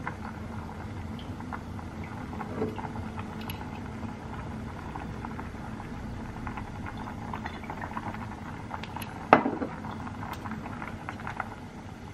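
Pot of pasta water at a rolling boil, bubbling steadily, with small clicks of kitchenware; a single sharp knock about nine seconds in.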